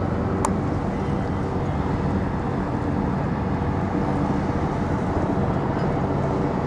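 Wind buffeting the microphone over a steady low rumble and hum of city traffic, with one brief sharp click about half a second in.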